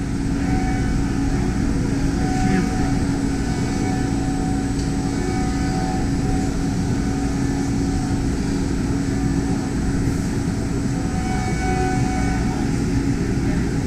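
DMG Mori duoBLOCK five-axis machining centre running, a steady mechanical drone with a constant hum as its swivelling milling head travels inside the enclosure. Faint crowd chatter underneath.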